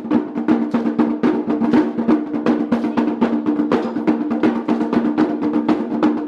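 Polynesian drum ensemble playing a fast, driving rhythm of rapid, even strokes over a steady low ringing tone.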